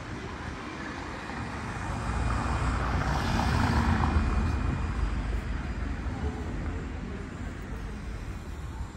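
A vehicle passing: a rushing sound swells up about two seconds in, peaks a second or two later and fades away, over a steady low rumble.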